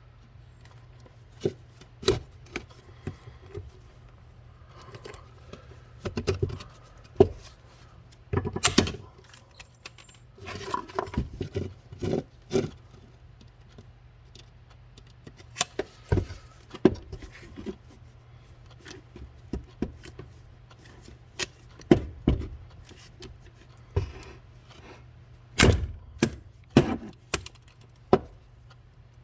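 Irregular sharp clicks, clinks and knocks of small metal parts and hand tools being handled during pop-riveting work, a few of them louder, over a faint steady low hum.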